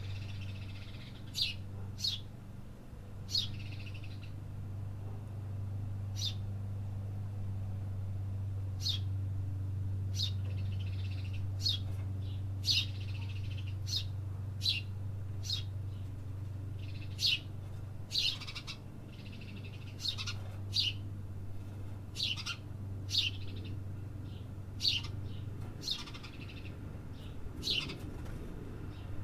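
Small birds chirping: short, sharp, high calls at irregular intervals, over a steady low hum.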